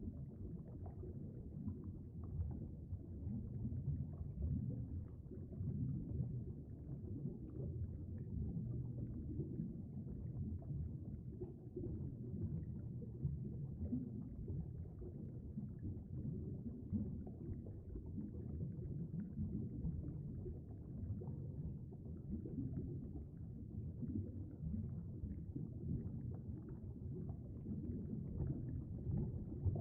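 Steady, muffled low rumble of flowing stream water heard through an underwater camera housing, with faint crackles.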